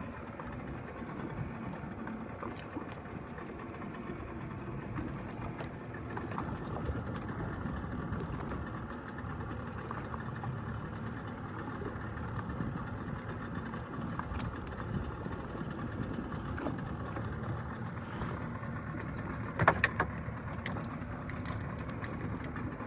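Boat engine running steadily. A couple of sharp knocks sound close together near the end.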